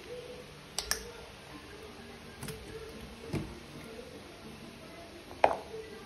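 A kitchen knife working through raw squid on a plastic chopping board, with a few soft clicks and knocks of the blade and hands on the board. About five and a half seconds in comes a single sharper clack, the knife being set down on the board.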